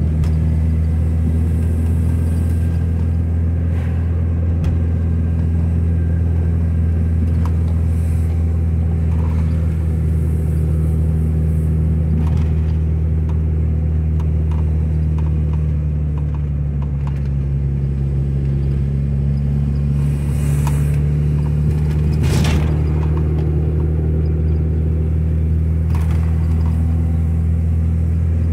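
Car engine and road noise heard from inside the cabin while driving, a steady low hum that dips and rises slightly past the middle, with a few brief light knocks or rattles, the strongest a little after twenty seconds in.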